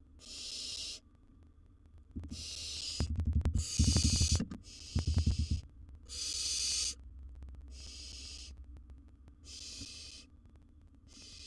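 Barn owl nestlings giving their hissing, snore-like begging calls, one every second or so. Between about two and five and a half seconds in there is loud low scuffling and knocking in the nest box.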